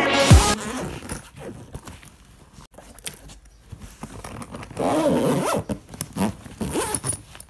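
Zipper on a black hard-shell backpack being pulled open, scratchy rasps with small clicks and knocks as the contents are handled, loudest from about five seconds in. A falling electronic sweep ends the background music about a third of a second in.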